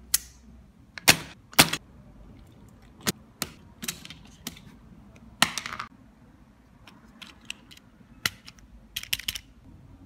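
Irregular sharp plastic clicks and clacks of a mechanical keyboard being handled as a wire keycap puller pulls a keycap off; the two loudest clicks come about a second in, with a quick run of clicks near the end.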